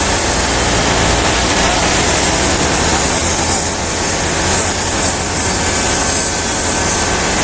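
Steady, loud vehicle rumble with a constant hiss over it.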